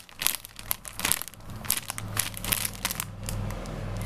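Crinkly plastic squishy packaging rustling and crackling as it is handled and turned over. From about halfway in, a steady low rumble of road traffic comes in through an open window.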